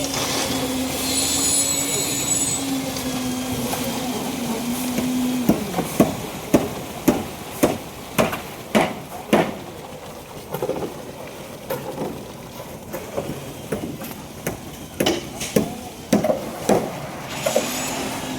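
Construction machinery runs with a steady hum for the first five seconds or so, stops, and starts again near the end. In the gap comes a run of sharp knocks and clanks, at first about two a second, then more irregular.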